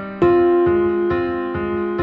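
Background keyboard music, a slow piano-like piece with notes struck about twice a second. A louder note comes in about a fifth of a second in and is held.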